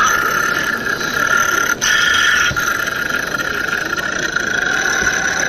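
Steady high-pitched mechanical whine with a hiss, starting and cutting off abruptly, with a brief drop-out about two seconds in.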